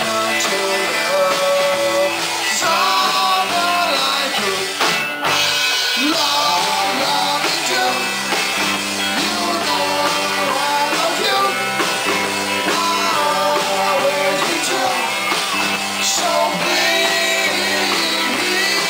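Rock band playing live: electric guitars, bass and drums, with singing. The sound cuts out for an instant about five seconds in.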